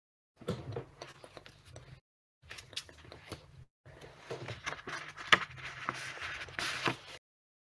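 Rustling, scraping and small clicks of handling at a desk, picked up by a video-call microphone. The sound cuts in and out abruptly several times.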